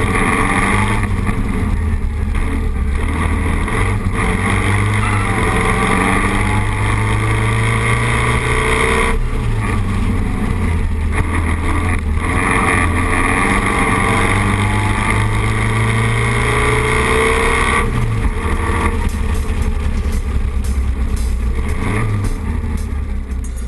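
Vintage sports racing car's engine under hard acceleration, heard from the open cockpit, its pitch climbing and then dropping back twice, about nine and eighteen seconds in.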